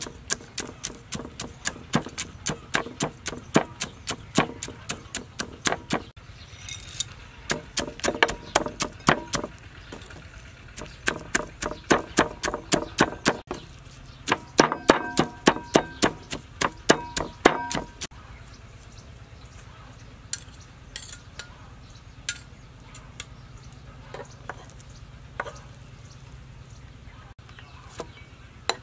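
A knife chopping on a cutting board in steady runs of sharp strokes, about two to three a second, some with a slight metallic ring. The runs stop about 18 seconds in, and scattered light taps follow.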